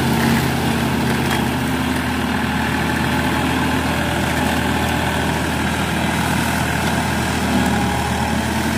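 Massey Ferguson 9500 Smart tractor's diesel engine running steadily under load while it drives a Lemken flail mulcher chopping soft green crop leaves.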